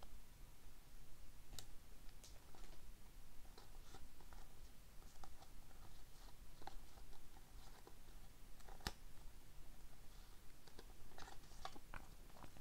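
A stack of glossy hockey trading cards being flipped through by hand: faint, scattered clicks and slides of card against card, with a few sharper snaps, the clearest about nine seconds in.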